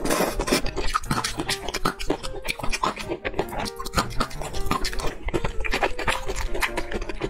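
Close-miked chewing of a mouthful of spicy noodles, with quick wet mouth clicks, over steady background music.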